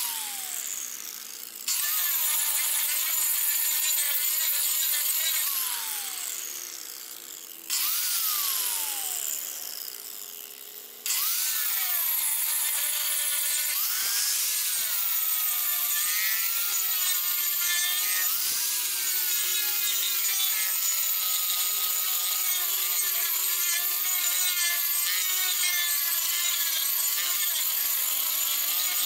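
Angle grinder with a disc working the top of a wooden chopping block. Its whine fades away with falling pitch and comes back abruptly at full speed three times in the first eleven seconds, then runs steadily, the pitch dipping and recovering as the disc bears on the wood.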